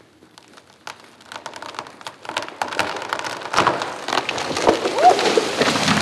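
A hung-up tree's trunk and limbs cracking and snapping as it gives way and comes down. The crackling grows denser and louder over the last few seconds and ends in a heavy thump as the tree lands.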